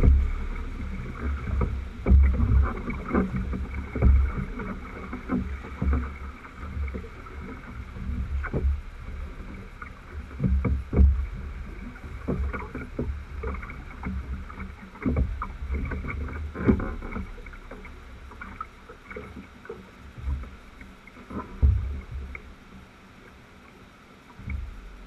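A wooden drift boat being rowed through whitewater: the rushing of the river around the hull, with irregular knocks and heavy thumps from the boat and its oars as water slaps the hull and the oars work.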